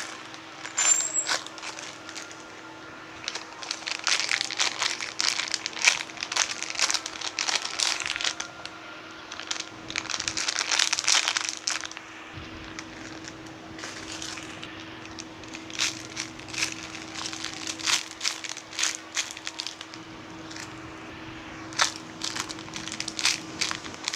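Plastic packaging crinkling and crackling as it is handled, in irregular bursts of sharp crackles, with a faint steady hum underneath.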